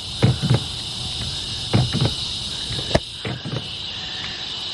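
The repaired car part is tested and works: short mechanical clunks, mostly in pairs about a quarter second apart, three times over. Crickets chirp steadily behind them.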